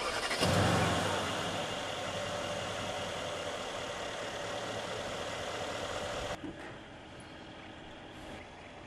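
Mercedes-Benz CLS 500's V8 starting up. A sharp click, then the engine catches with a loud flare about half a second in and settles to a steady idle, which cuts off suddenly about six seconds in.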